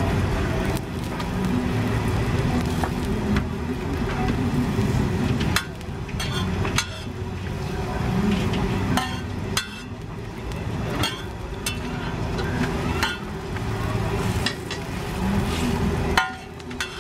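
Thai roti frying on a round flat griddle, with a metal spatula tapping and scraping against the plate many times at uneven intervals. A steady low hum runs underneath.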